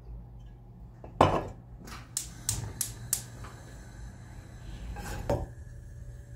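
Hard objects being handled and set down on a desk: a solid knock about a second in, a quick series of sharp clicks and taps, then another knock near the end.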